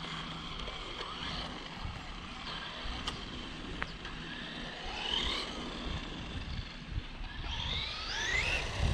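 Traxxas Bandit VXL RC buggy's brushless motor and freshly fitted 35-tooth pinion gear whining in short throttle bursts, each rising in pitch, with the longest and highest rise near the end. The new gear mesh sounds good.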